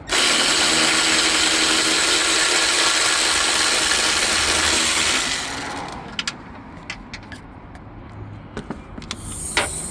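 Power ratchet with a 14 mm deep socket running loud and steady for about five seconds, loosening a strut top-mount nut; it starts abruptly and then winds down. Light metallic clicks and clinks of the tool and parts follow.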